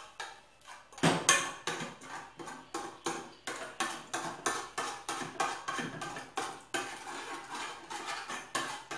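A spoon clinking and scraping against a small saucepan, about three strokes a second, as a thick cornstarch, milk and turmeric paste is stirred. It starts about a second in.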